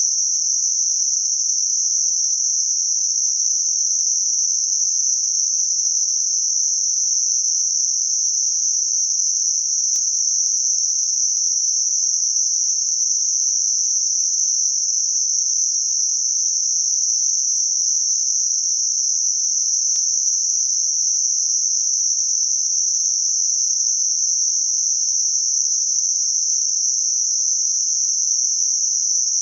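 Steady, unchanging high-pitched hiss of computer-generated Gaussian narrow-band noise centred on 6 kHz, a tinnitus-masking sound.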